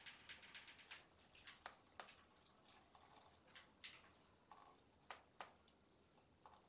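Faint wet squishes and scattered drips and ticks as long wet hair is squeezed and wrung out by hand over a shampoo basin.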